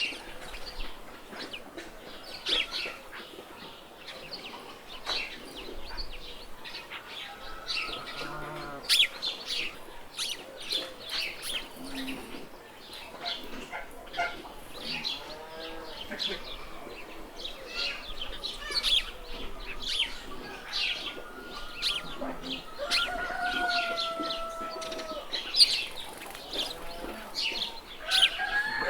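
Farmyard ambience: chickens clucking and calling over a busy chorus of small birds chirping, with a couple of longer drawn-out calls in the second half.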